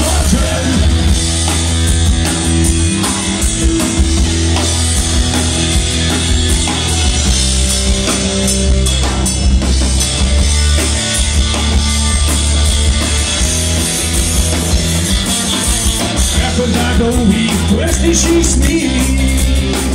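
Live rock band playing a song, with drum kit and heavy bass, loud and steady throughout.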